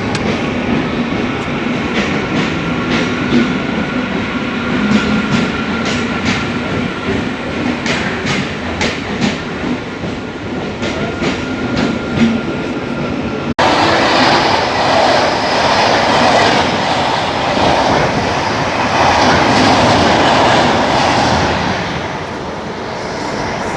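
Passenger train running on rails, its wheels clicking over rail joints at a steady rhythm with a faint high tone over the rumble. About two-thirds of the way through it cuts abruptly to a louder, denser rushing sound of a train moving at speed.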